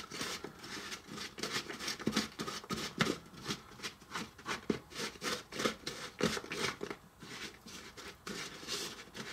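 A small spoon scraping and stirring stiff peanut butter cookie dough packed with chips in a small bowl, in quick, uneven strokes. The dough is stiff because the butter is still too cold to have softened.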